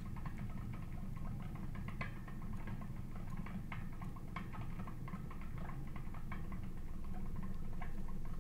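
Bicycle-wheel magnet generator spinning down with its microwave-oven-transformer coils shorted out: a steady low rumble with light, irregular ticks about once or twice a second as the wheel slows.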